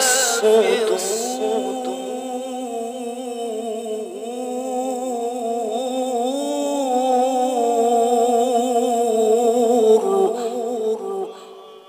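A male Qur'an reciter's voice holding a long, ornamented melodic line in mujawwad-style recitation, the pitch wavering in fine trills and slides. It fades out about eleven seconds in.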